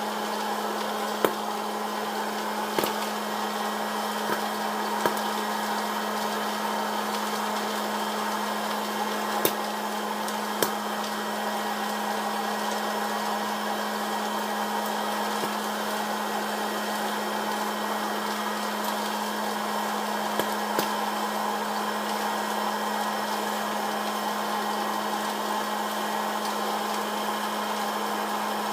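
Electric hot-air popcorn popper running, its fan and heater blowing steadily with a low hum, while a few last kernels pop now and then: a handful of sharp pops in the first ten seconds or so, then two more around two-thirds of the way through. The sparse popping marks the batch nearly done.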